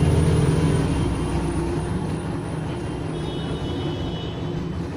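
Steady road traffic noise with a low engine hum, easing off a little over the first two seconds.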